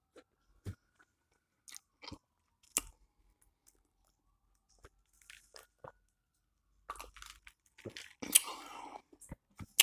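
Close-miked mouth sounds of a person eating: chewing with scattered soft crunches and clicks, busier about seven to nine seconds in.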